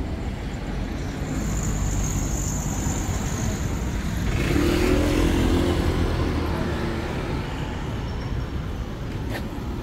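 Street traffic rumble, with a motor vehicle passing close by: its engine swells to a peak about halfway through and then fades. A thin high whine sounds in the first few seconds.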